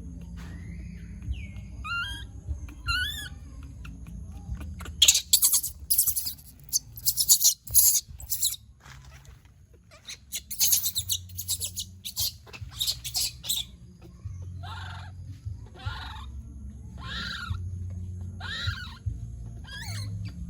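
Baby monkey calling: short squeaky calls that glide up and down in pitch, then two runs of loud, harsh shrieks about five and eleven seconds in, followed by a string of shorter cries.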